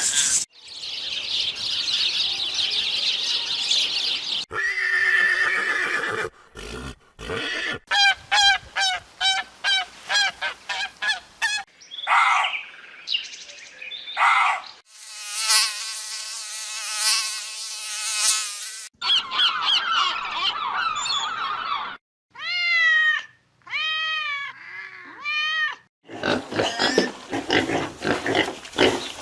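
A run of different animal calls, changing abruptly every few seconds: among them a fast series of repeated calls, one long steady pitched call, and several short arching cries.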